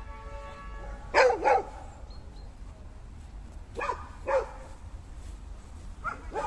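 A dog barking in quick pairs, two barks at a time, three times over.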